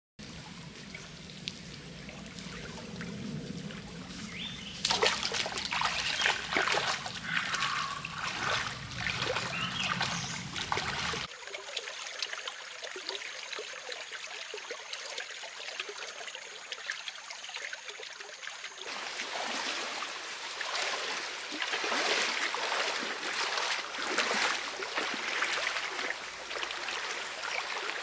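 Shallow creek water trickling and splashing over stones. The sound changes abruptly a few times, as from one stretch of water to another.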